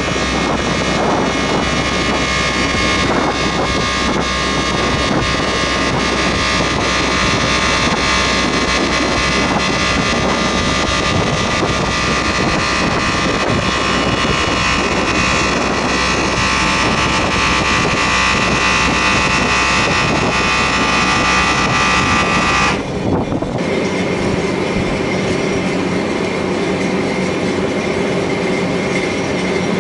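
Power cowl opening system running as it swings the GE90-90B's core cowl and thrust reverser half open: a steady mechanical drone with a many-toned whine on top. The whine cuts off abruptly about two-thirds of the way in, leaving a lower steady drone.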